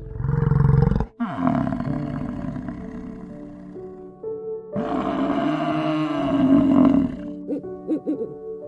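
Cape buffalo calling in long, deep bellows, one right at the start and another about halfway through, over soft background music. Near the end a snowy owl gives short, wavering hoots.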